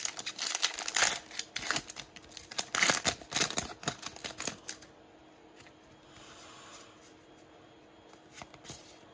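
Foil wrapper of a Pokémon card booster pack crinkling and rustling as it is torn open and the cards are pulled out, for about the first five seconds. After that it goes much quieter, with only a few soft clicks of the cards being handled.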